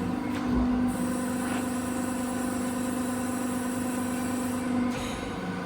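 130-ton CNC press brake running: a steady mechanical hum with a faint high whine that starts just after the beginning and cuts off about five seconds in.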